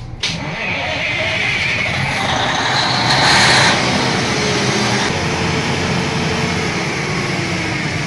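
Ship's emergency generator diesel engine starting and running up to a loud, steady run. A louder rushing hiss swells about two and a half seconds in and eases off just before four seconds.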